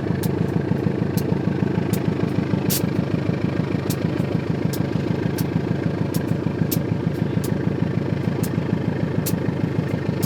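CC 203 diesel-electric locomotive engine idling steadily with a fast, even pulsing, while irregular sharp clicks sound over it every half second to a second.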